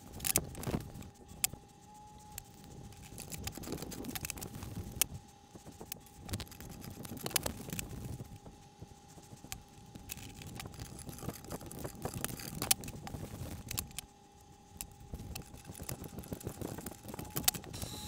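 Brass pipe fittings being handled and threaded together by hand: irregular metal clinks and taps with rubbing and handling noise, over a steady faint high hum.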